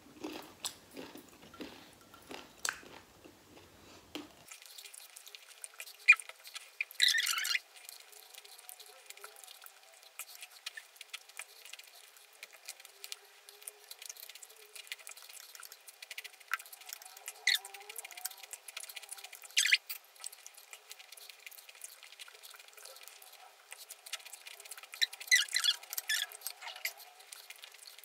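A person chewing food with the mouth, with sharp crunches of something crisp now and then. The loudest crunches come about seven seconds in, about twenty seconds in, and in a quick cluster near the end.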